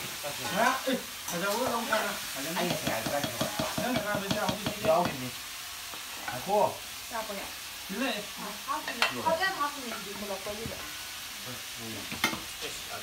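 A long wooden spoon stirring and scraping curry in a metal pressure-cooker pot, with irregular knocks and scrapes against the pot's sides; near the end the pot is gripped and tipped.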